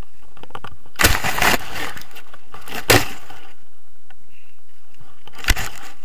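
Knocks and rustling on an action camera's microphone as it ends up down in tall grass and weeds: three loud bursts, a longer one about a second in, a short one near three seconds and a sharp knock near the end.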